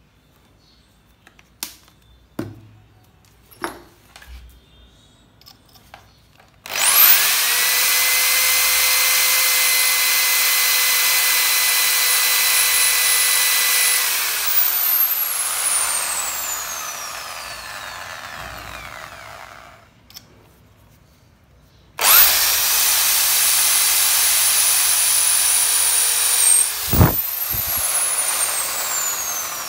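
Power drill drilling into an oiled metal drawer slide. After a few handling clicks, the motor spins up about seven seconds in, runs at a steady pitch, then slowly winds down. It starts again later, runs a few seconds, and winds down again near the end.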